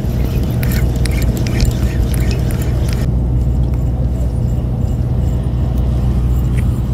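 Steady low engine drone of construction machinery, loud and unbroken, with scattered sharp clicks in the first few seconds.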